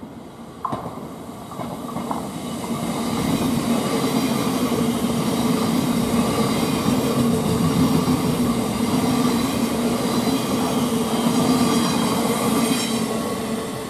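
Thameslink Class 700 Desiro City electric multiple unit running in alongside the platform: wheels on rail with a steady electric whine. It grows louder over the first few seconds as it draws level and eases off near the end.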